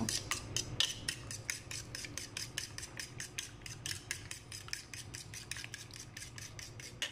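Fork beating raw eggs in a ceramic plate, the tines clicking rapidly against the plate at about six strokes a second, growing somewhat quieter near the end.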